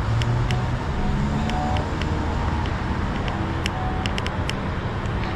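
Road traffic noise: a steady hum of car engines and tyres, with scattered light clicks.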